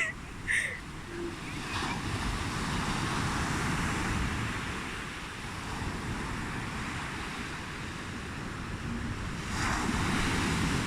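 Ocean surf washing onto a beach, a steady rush that swells about two seconds in and again near the end, with wind buffeting the microphone.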